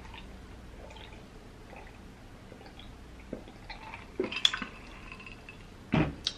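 A person drinking ginger beer from a wine glass: small sips, then a cluster of louder gulps about four seconds in. A knock near the end as the glass is set down.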